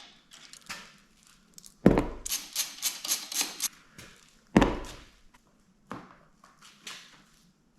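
Plastic body panels being handled and pressed into place on a pit bike: two heavy thunks, the first followed by a quick run of clicks and rattles, then a few lighter knocks.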